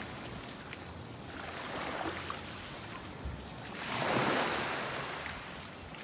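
Small waves washing up on a pebbly beach, the surf swelling a little about two seconds in and more strongly about four seconds in before easing off.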